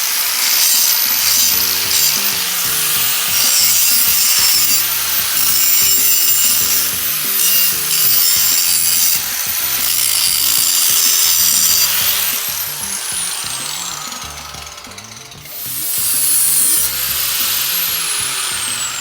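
Power tool cutting or grinding metal, a harsh steady hiss, over background music with a bass line. Twice near the end a high whine slides down in pitch.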